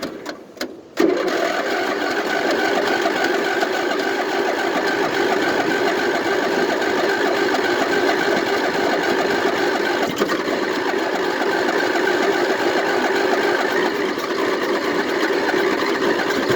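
Riding mower's electric starter cranking the engine in one long, steady run of about fifteen seconds without it catching, after a couple of short bursts at the start. This is a hard start, with the cranking slowing on a battery that the owner thinks is going bad.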